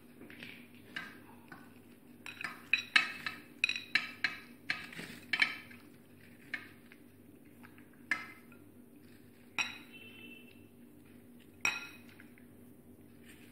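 Cut lemon pieces being tipped from a glass bowl onto a steel plate of sugar and spices: a quick run of clinks and light knocks of glass and steel for about the first six seconds, then a few single clinks, one ringing briefly.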